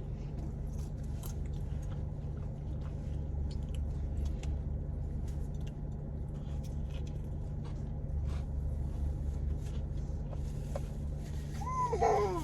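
Close-up chewing and biting of fast food, with many small wet clicks and crunches, over a steady low hum. A short vocal sound comes near the end.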